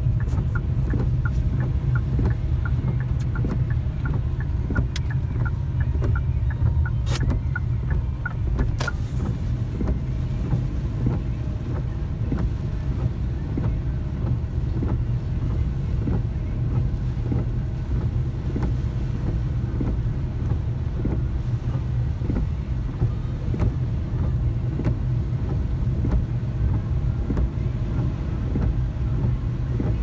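Steady low rumble of a car driving on wet roads, heard from inside the cabin in typhoon rain. For the first eight seconds or so there is quick, regular ticking, and there are two sharp knocks near the end of that stretch.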